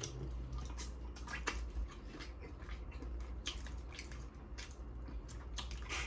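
Close-miked eating of seafood-boil Dungeness crab: wet chewing and mouth smacks, with many short sharp clicks.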